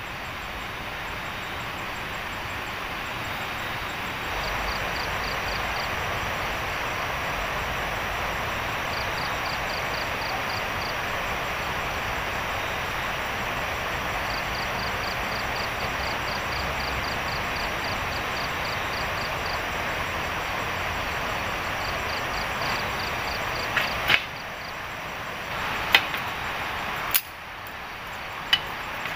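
A steady rushing noise with several runs of fast, high chirping, cut short near the end by several sharp knocks of bamboo sticks being struck and broken on the ground.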